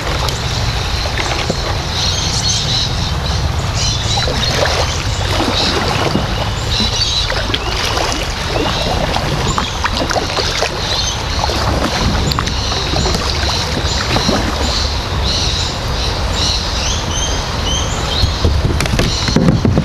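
Kayak paddle strokes, with water splashing and dripping off the blades in irregular bursts, over a steady low rumble of wind on the microphone.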